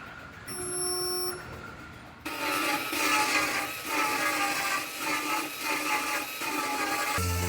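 A handheld power tool running with a wavering whine, starting abruptly about two seconds in. It is typical of grinding or sanding on sheet-metal bodywork. Before it starts there is a brief steady tone.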